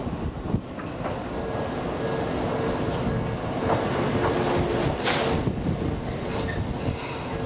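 Tokyo Toden Arakawa streetcar, car 9001, pulling into the platform, its wheels rumbling over the rails. A steady whine comes in about a second in, and a short hiss sounds about five seconds in.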